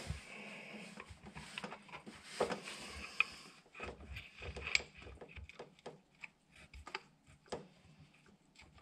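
Light, irregular metal clicks, taps and scraping as a cast crank pulley (harmonic balancer) is worked by hand onto the crankshaft nose over a crankshaft saver extension and keyway.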